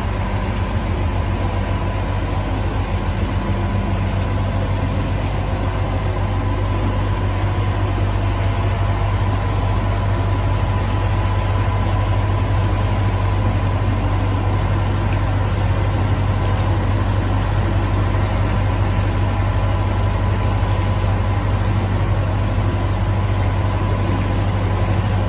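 Narrowboat's inboard diesel engine running steadily at cruising speed with a constant low hum, inside a brick canal tunnel.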